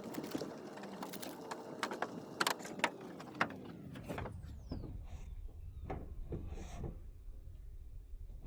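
Plastic pickup bed liner being pushed and flexed into a truck bed: scraping and rubbing with sharp knocks and clicks of plastic. About four seconds in the sound changes abruptly to a low rumble with a few fainter knocks.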